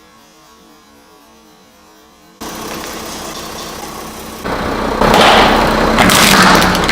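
A car's engine idles faintly. About two and a half seconds in, a sudden loud noisy rush begins and swells louder near the end, with sharp cracks: the tyres rolling over and crushing something.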